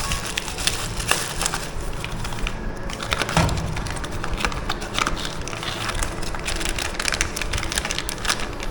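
Packaging being handled during unboxing, crinkling and crackling with many irregular small clicks.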